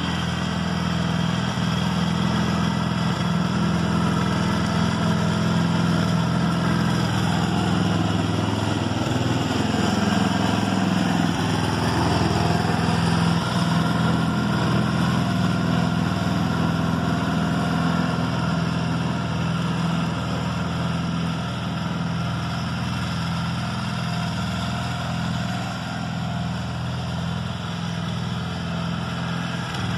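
Flymo GCL 75 lawnmower running steadily while cutting grass, a little louder in the middle as it passes close by.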